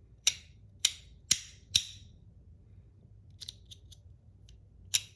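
PEI and aluminum Battle Master 1.1 fidget clicking: four loud, sharp snaps about half a second apart, then a few softer clicks, and another loud snap near the end.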